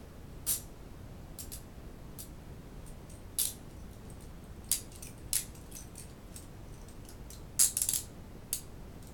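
Stainless steel hinged handcuffs clicking and clinking as they are handled and locked shut, about eight short, sharp metal clicks at irregular spacing, with a quick run of them near the end.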